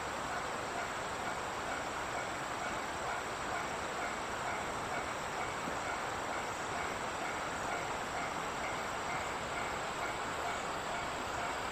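A train running past on the line, a steady even rolling noise that neither rises nor falls.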